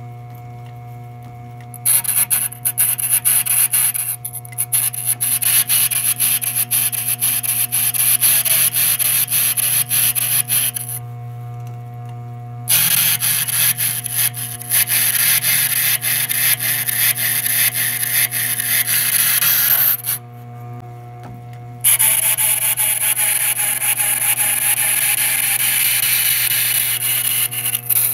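Antique sandstone grinding wheel turning with the steady low hum of its treadmill DC motor, while a dressing tool is pressed against its face in three long rasping passes to grind down the high spots and true the stone. Between passes only the motor hum is heard.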